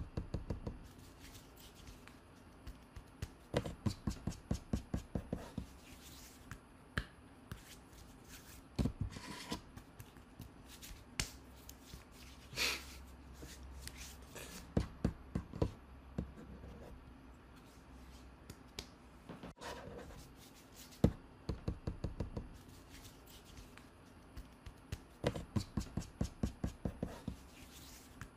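Exaggerated kissing smacks in quick runs of about four or five a second, coming in about five bursts with pauses between.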